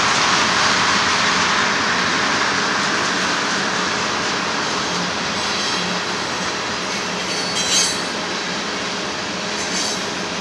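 Freight cars of a Union Pacific manifest train (tank cars, boxcars, a covered hopper) rolling past on steel wheels, a steady rumble of wheels on rail that slowly eases. A brief high-pitched wheel squeal comes about three-quarters of the way in, and a fainter one near the end.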